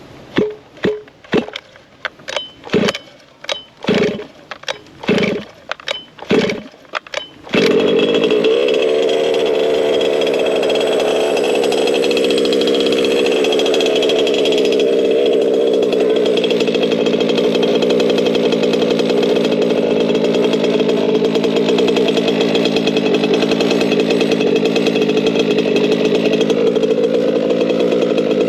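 ESP 30.5cc two-stroke RC car engine being pull-started in about a dozen short strokes. It catches about seven and a half seconds in and then runs steadily, on its second tank of break-in running.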